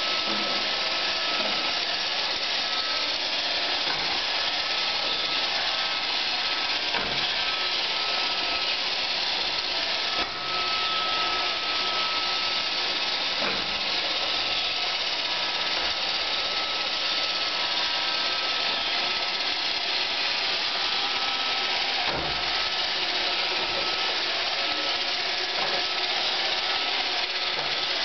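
iRobot Roomba 520 robot vacuum running steadily: a hiss from its vacuum and brush motors with a thin steady whine, and occasional knocks.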